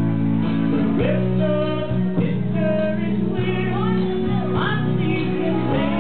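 A woman singing a song into a hand-held microphone, holding and sliding between notes, over steady instrumental accompaniment.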